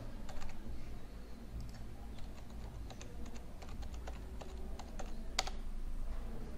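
Typing on a computer keyboard: irregular key clicks, with one louder click about five seconds in.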